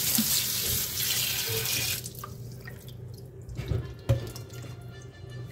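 Kitchen tap running into a stainless steel sink as frozen pork ribs are rinsed under the stream, shut off abruptly about two seconds in; then water dripping off the ribs and a couple of soft knocks.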